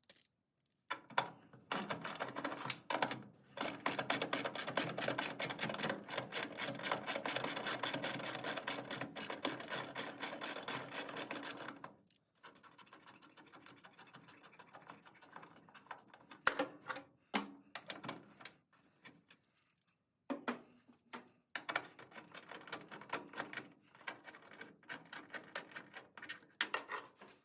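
Ratchet wrench with a 7/16 socket clicking rapidly as the bolts of a strap holder are backed out. A long run of fast, even clicks lasts about ten seconds, then it goes fainter, with shorter runs of clicks near the end.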